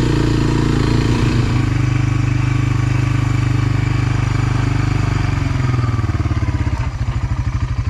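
Honda FourTrax 300 ATV's single-cylinder engine running steadily on the move, then dropping to idle about five and a half seconds in, its slow firing pulses heard one by one.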